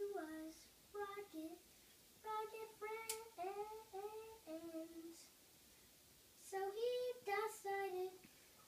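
A young boy singing to himself in short phrases, with a pause of about a second past the middle. A single sharp click sounds about three seconds in.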